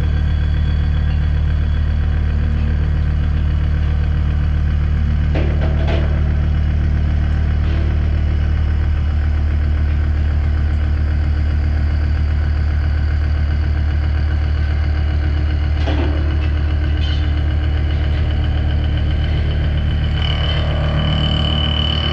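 Mazak horizontal machining center running, a loud steady low machine hum with a few short clicks; a steady high-pitched tone joins near the end.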